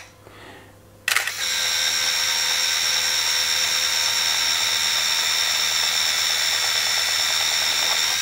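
Canon EOS RT's built-in film-transport motor rewinding the 35 mm film back into its cartridge. A click about a second in, then a steady high-pitched motor whine that stops near the end.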